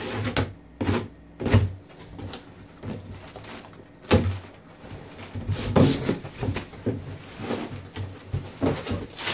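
Cardboard shipping box being opened: a razor blade slitting the packing tape, then the flaps pulled and folded back with several sharp cardboard knocks and scrapes, and brown kraft packing paper rustling near the end.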